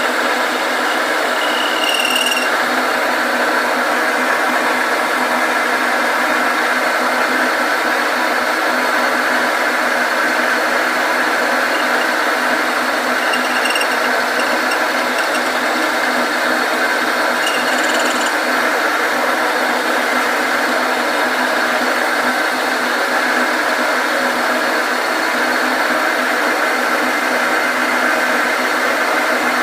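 Machine tool running steadily while cutting aluminum, an even whirring hiss of the cut, with a brief high-pitched squeal a few times.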